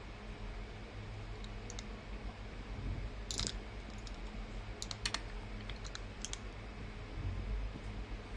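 Several small sharp clicks and taps in short clusters over a steady low hum.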